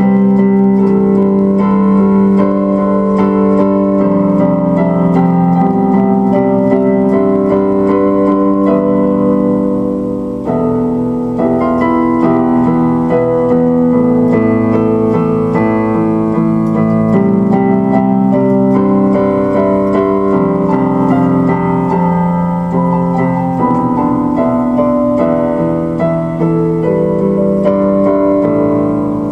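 Instrumental music played on piano or electric piano, with held notes and chords changing every second or so.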